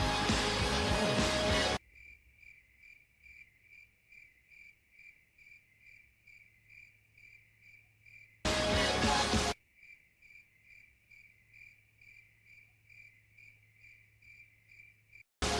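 Crickets chirping, a faint, even high chirp about three times a second: the stock 'awkward silence' effect. Loud music cuts off just before it starts. A loud burst of about a second breaks in about eight seconds in, then the chirping resumes until loud sound returns at the very end.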